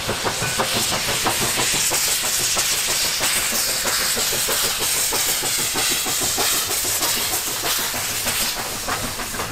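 Black River and Western No. 60 steam locomotive passing close by with a freight train: a quick, even run of exhaust chuffs over a constant hiss of steam venting from the cylinder cocks.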